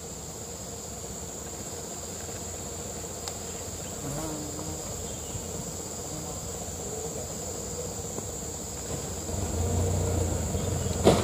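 Steady high-pitched insect chorus of crickets or cicadas, with the low rumble of an engine underneath that grows louder about nine and a half seconds in. A sharp knock near the end.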